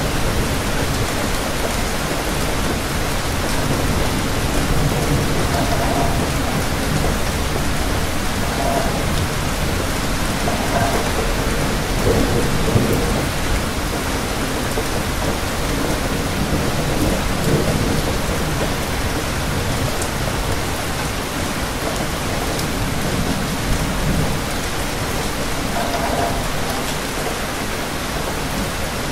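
Continuous rain, a dense, steady hiss with a low rumble underneath that swells and fades.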